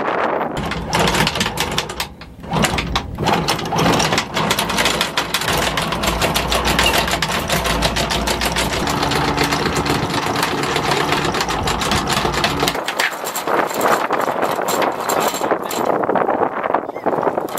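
Electric anchor windlass hauling in the anchor: the motor hums while the chain clatters link by link over the gypsy and bow roller. The low motor hum stops about three-quarters of the way through.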